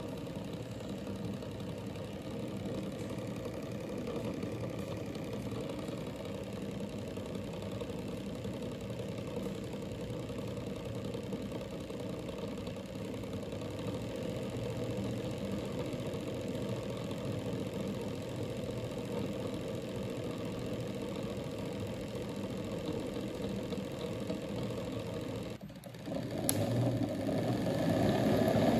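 Electric motor running steadily with an even mechanical hum. Near the end, after a brief drop-out, a louder whine rises in pitch as the motor speeds up.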